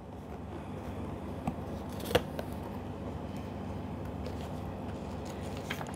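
Cardboard box being opened by hand, its flaps and tabs rustling and scraping, with a sharp snap about two seconds in and a couple of fainter clicks.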